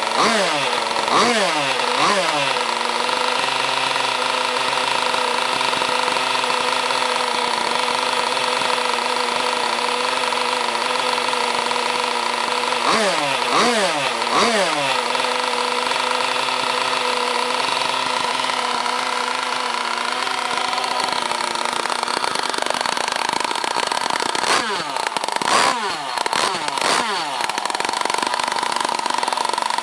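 Zenoah-based two-stroke gas engine of an RC race boat idling steadily, blipped three times in quick succession near the start, in the middle and near the end, each rev falling back to idle.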